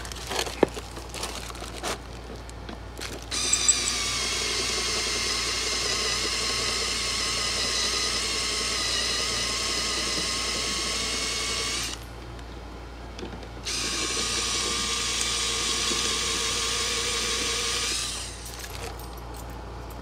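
Cordless DeWalt drill running under load as it drills out steel rivets on a seatbelt anchor bracket. It runs in two long steady runs, about eight seconds and then about four, with a short pause between and light handling clicks before.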